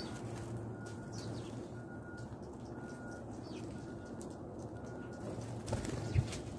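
Sparrows giving a few faint, short chirps over a steady low hum, then a flurry of wingbeats and a thump about six seconds in as a bird takes off from the ledge.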